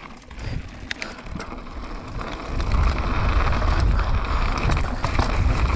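Commencal downhill mountain bike rolling down a gravelly dirt trail, with wind rumbling on the action camera's microphone and scattered clicks and rattles from the bike and tyres. The rumble grows much louder about two and a half seconds in as the bike picks up speed.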